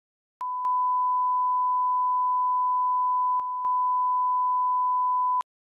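A steady electronic sine-wave beep at about 1 kHz, held for about five seconds. It starts half a second in, dips briefly a little past three seconds, and cuts off suddenly.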